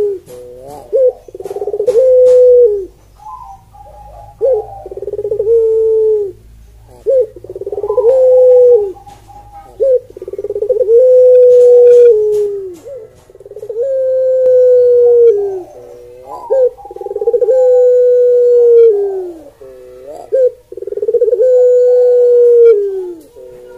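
A Barbary (ringneck) dove of the Indonesian puter pelung type cooing over and over. Each call is a few short rising notes followed by a long, steady, low coo that drops off at the end, about one call every three seconds.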